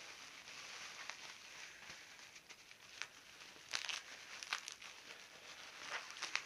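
Packing paper rustling and crumpling as parts are unwrapped, with several sharper crackles in the second half.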